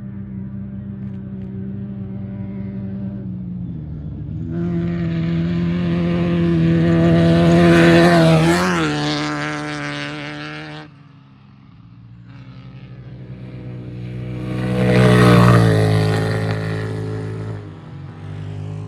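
Off-road race vehicles at speed: a steady engine drone, then a race vehicle passes loudly about eight seconds in, its engine pitch dropping as it goes by. A second one swells up and passes about fifteen seconds in.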